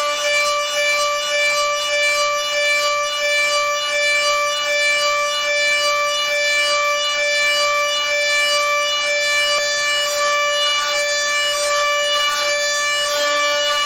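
CNC machine cutting, giving a steady high-pitched whine that holds one pitch with overtones.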